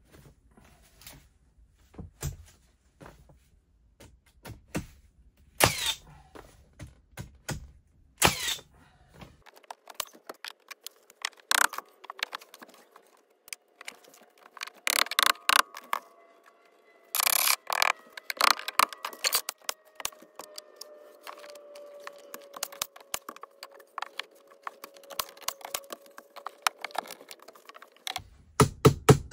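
Irregular knocks, clicks and rattles, the kind made by handling wooden tongue-and-groove wall boards and fitting them into place, with a few louder knocks among them. From about halfway a faint steady hum joins in and slowly sinks in pitch.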